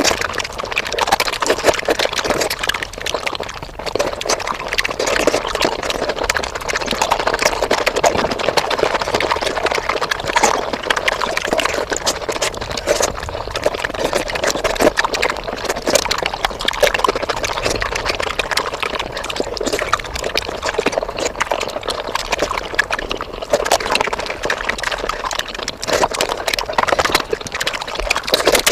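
Close-miked mukbang eating sounds, chewing and wet mouth noises, sped up five times into a dense, unbroken clatter of quick smacks and clicks.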